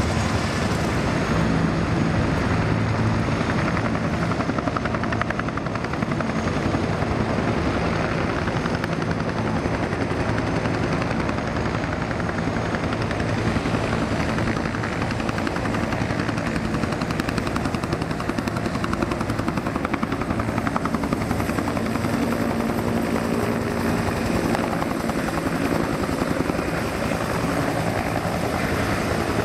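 Several military helicopters running together, their turbine engines and rotors making a loud, steady wash of noise with a fast, even chop from the rotor blades.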